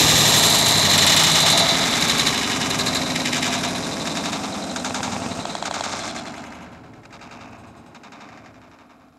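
Loud, rapid rattling noise made of fast repeated clicks, which fades away over the last few seconds.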